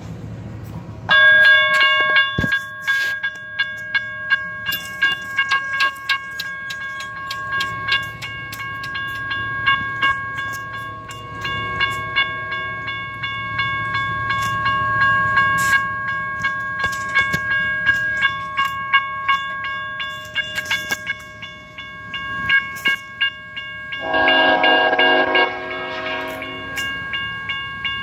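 Grade-crossing warning bell starts ringing about a second in and keeps up a steady, repeated ding, the signal that a train is approaching. About 24 seconds in, a locomotive's Nathan K5HL five-chime air horn sounds one loud blast of about two and a half seconds.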